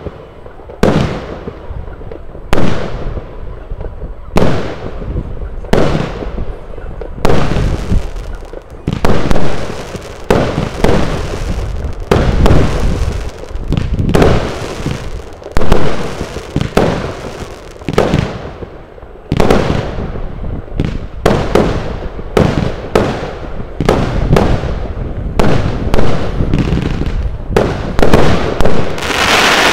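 Slam Dunk consumer firework cake firing a long series of loud shots. The shots come about one and a half seconds apart at first and faster from about seven seconds in, with crackling between them and a dense crackling salvo near the end.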